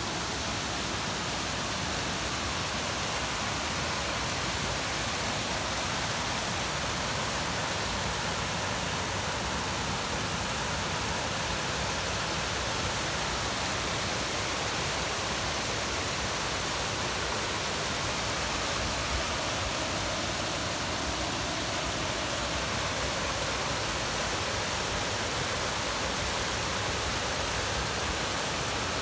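Creek water rushing steadily over rocks and a small waterfall spilling off a flat rock ledge.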